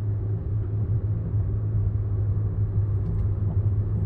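Hyundai Creta's engine and road noise heard from inside the cabin while driving in sport mode: a steady low rumble.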